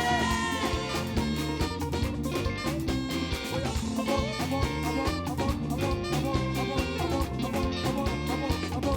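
Live gospel praise band playing an upbeat instrumental stretch with a steady beat and bass line; a held sung note trails off at the very start.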